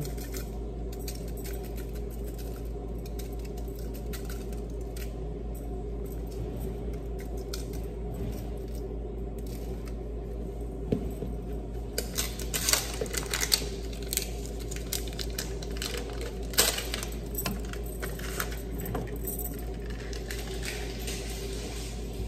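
Seasoning bottles and shakers being picked up and set down on a countertop: scattered light clicks and taps, most of them in a cluster about halfway through. A steady low hum lies underneath.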